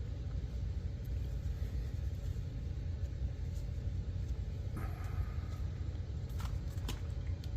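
Steady low rumble, with a brief faint tone about five seconds in and a couple of faint clicks near the end.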